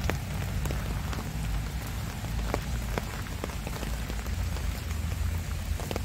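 Steady rain falling on garden plants, with many irregular sharp taps of drops hitting leaves close by over a low rumble.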